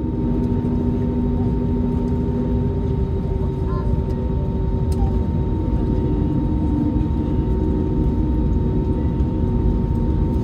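Steady cabin noise inside an Airbus A321neo: the Pratt & Whitney PW1100G geared turbofans running steadily, with air and airframe rumble and a steady high hum.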